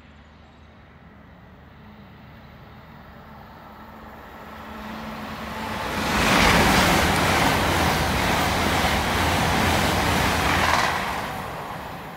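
A Great Western Railway Class 800 IET train passing through the station at speed: a rushing rumble that builds as it approaches, stays loud for about five seconds, then falls away near the end.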